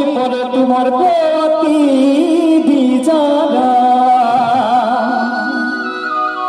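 Male singer singing live into a handheld microphone over instrumental accompaniment, the voice wavering and ornamented on held notes.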